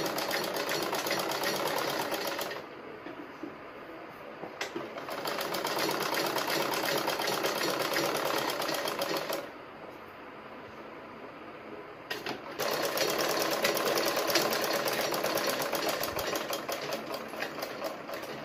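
Sewing machine stitching fabric in three runs of rapid, even needle strokes, with short pauses between them. The last run slows and fades out near the end.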